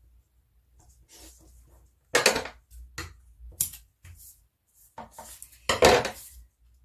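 Paper and a roll of double-sided tape being handled on a wooden tabletop: several short, sharp rustles and clacks, the loudest about two seconds in and near the end.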